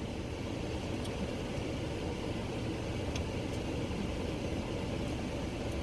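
Steady low rumble with a faint hiss, with a couple of faint ticks.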